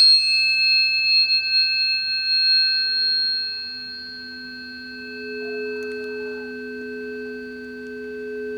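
Planetary tuning forks ringing. A fork struck just before rings on in several steady high tones, and about three seconds in two lower tones swell in beneath it, the sound wavering gently as it slowly fades.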